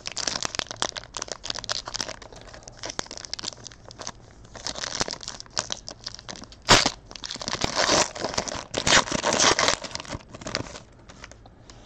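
Foil wrapper of a Panini Prizm basketball hobby pack crinkling and being torn open by hand. The crackling comes in uneven bursts, with one sharp loud crack about two-thirds through, and dies down near the end.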